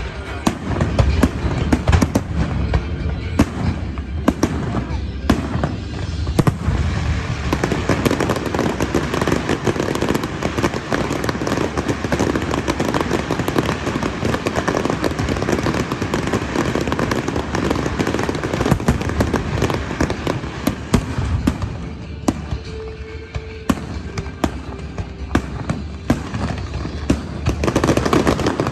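Aerial fireworks bursting in a dense, continuous barrage of bangs and crackling. The barrage thins out for a few seconds about three quarters of the way through, then picks up again.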